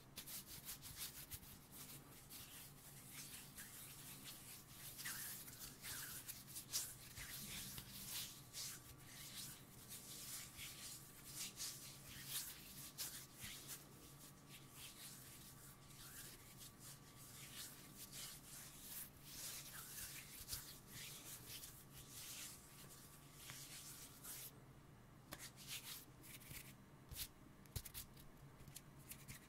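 Faint, close-miked hands rubbing and fingers brushing together, an irregular soft rustling with many small crackles, with a brief lull near the end.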